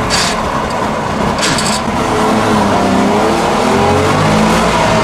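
DKW Munga's two-stroke engine running while the vehicle drives, heard from inside. About halfway through the revs climb and it gets louder as it pulls away.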